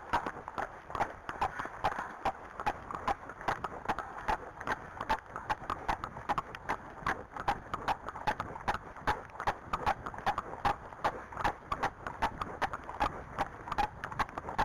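Hooves of two horses, a Friesian and an Arabian, walking on a tarmac lane: a steady clip-clop of several hoof strikes a second, the beats of the two horses overlapping.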